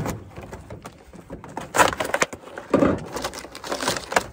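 Rustling and scraping of a cardboard box and its packaging as the contents are pulled out, in a few short bursts, the loudest about two seconds in.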